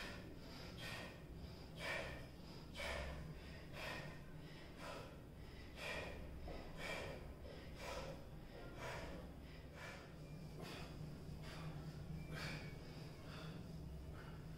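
A man's short, forceful exhalations, about one a second, in rhythm with reps of a banded triceps pushdown: hard breathing under exertion.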